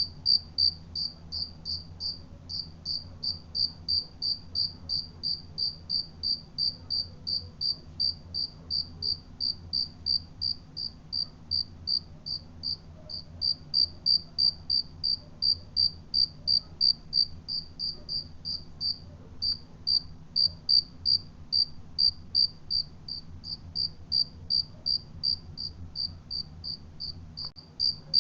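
Cricket chirping in a steady, even rhythm, about three short high-pitched chirps a second.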